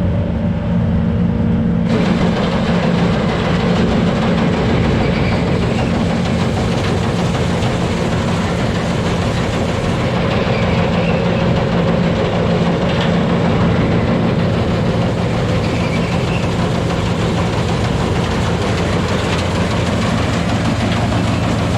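Sampo plot combine harvester running steadily with its engine note held constant. About two seconds in, a dense mechanical rushing and clattering joins and carries on.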